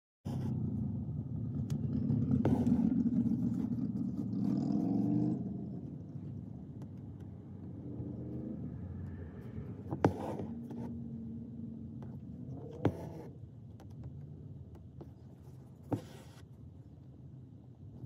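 Low rumble of a car heard from inside the cabin, louder over the first five seconds and then steadier and quieter, with three sharp clicks in the second half.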